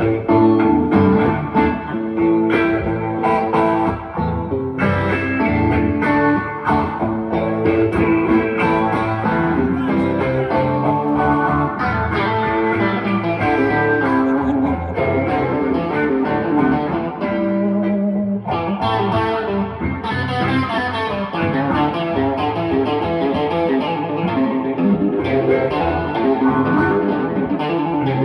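Live blues music: an instrumental guitar passage with electric guitar lines played over accompanying guitar, no singing.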